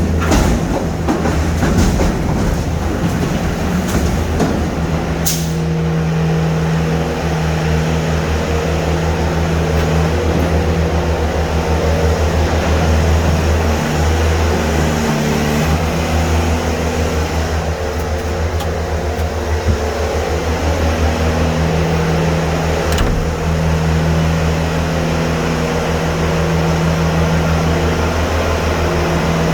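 Vehicle engine running steadily with a low, even hum, a couple of brief knocks standing out.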